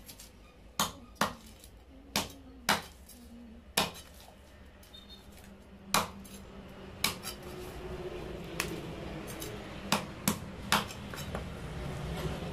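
A large steel knife scraping the scales off a catla fish on a wooden chopping block, with about ten sharp, irregular knocks and clinks of the blade against the fish and block.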